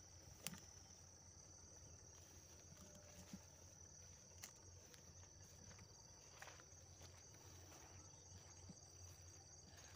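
Near silence, with a faint, steady, high-pitched insect trill, cricket-like. A few faint clicks of footsteps come through the field.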